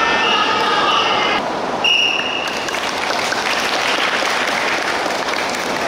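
Clapping from futsal players lined up after the final whistle, starting just after a short, high, steady signal tone about two seconds in.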